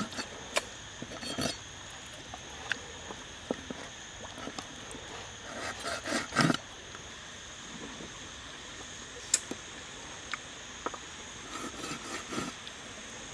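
A kitchen knife knocking and cutting on a wooden chopping board as raw chicken drumsticks are cut, in scattered irregular knocks, the heaviest about six seconds in. Under it runs a steady high insect drone.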